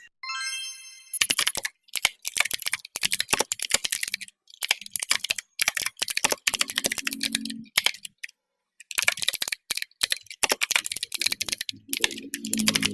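Fast typing on a mechanical keyboard: dense runs of sharp key clicks with a few short pauses. It opens with a brief ringing tone lasting about a second.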